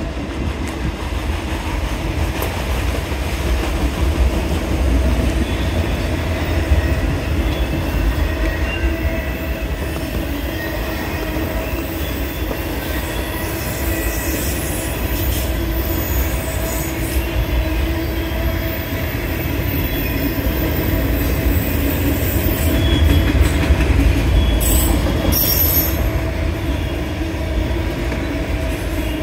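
CSX autorack freight cars rolling past on steel wheels: a steady low rumble with squealing flanges as the train crosses over from track one to track two. A few sharp clicks come a little before the end.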